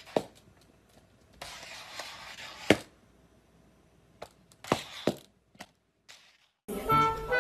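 A handful of sharp knocks and taps, about seven spread over several seconds, with a short stretch of hiss in the first half.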